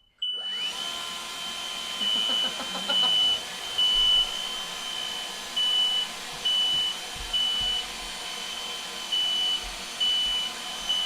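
Smoke alarms beeping, set off by cooking smoke: short, high-pitched beeps at uneven spacing. Under them, an electric motor's whir switches on about half a second in, briefly rising in pitch, then runs steadily.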